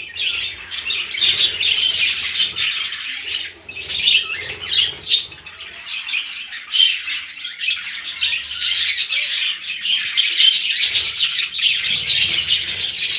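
Budgerigars chattering: a dense, continuous stream of short, high chirps and squawks from several birds at once.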